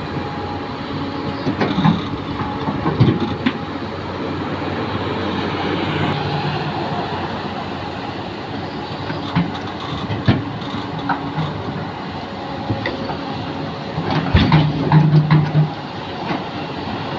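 XCMG 380 excavator running steadily, with scattered metallic clanks and knocks; the knocks come thickest and loudest about 14 to 15 seconds in.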